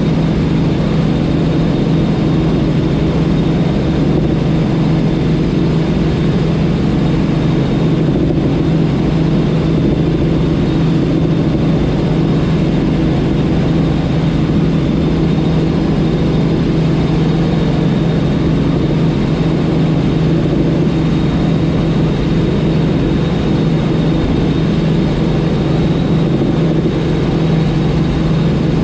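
Light helicopter in cruise heard from inside the cockpit: a loud, steady drone with a faint, thin high whine above it.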